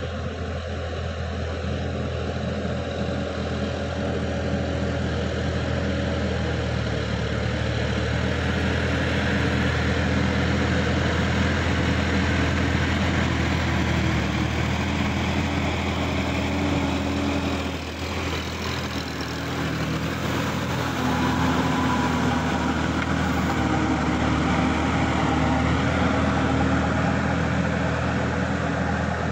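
Sonalika tractor's diesel engine running steadily under load, with its rotary tiller churning through flooded paddy mud. The sound dips briefly a little past halfway, then picks up again.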